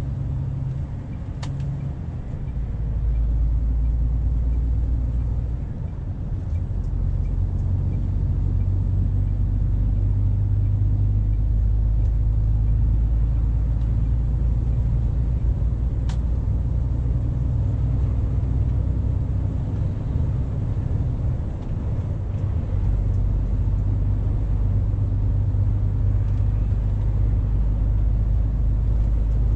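MAN lorry's diesel engine and road noise heard from inside the cab as the truck pulls up to speed, the engine note dipping and shifting briefly a few times as it changes up through the gears.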